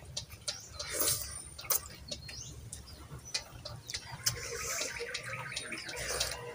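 People eating by hand: chewing and mouth smacks, with scattered small clicks and clinks of spoons and bowls.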